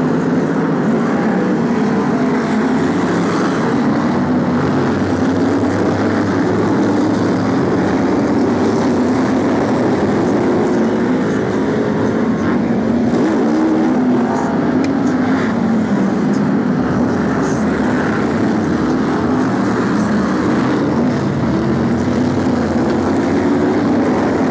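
A pack of BriSCA F1 stock cars' V8 engines running hard on the oval: a steady, loud, massed engine drone whose pitch keeps rising and falling as the cars accelerate along the straights and lift for the bends.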